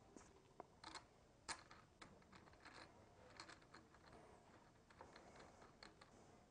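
Faint, irregular small clicks and ticks of hands fitting the clutch lever perch and threading its clamp bolt onto a handlebar, the loudest about a second and a half in; otherwise near silence.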